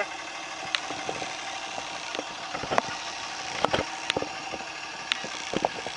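A 5.9-litre Cummins turbo-diesel idling steadily, with a few sharp clicks and knocks scattered through.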